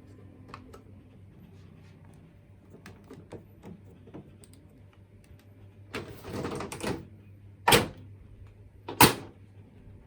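A brief rustle, then two loud knocks about a second and a half apart, over a low steady hum.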